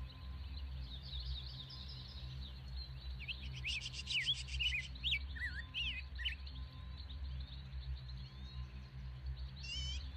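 Birds chirping and twittering, with a cluster of quick calls in the middle and a fast trill near the end, over a low steady hum.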